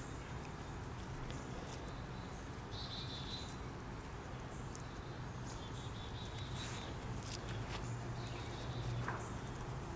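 Birds chirping on and off in short buzzy trills, with scattered light clicks, over a steady low rumble.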